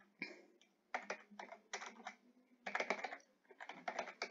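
Computer keyboard typing: short runs of quick keystroke clicks with brief pauses between them.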